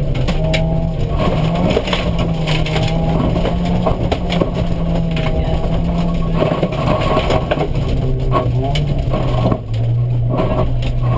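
Opel Astra GSi rally car's engine running hard, heard from inside the stripped cabin, with gravel rattling under the car. Near the end the revs drop sharply and the engine settles at a lower note.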